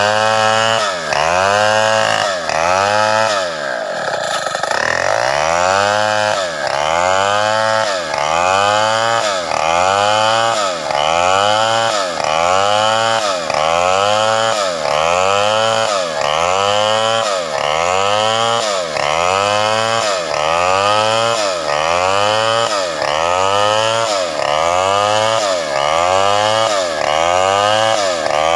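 Chainsaw ripping a sengon log lengthwise, its engine pitch rising and falling in a regular cycle about once a second as it cuts, with a brief drop about four seconds in.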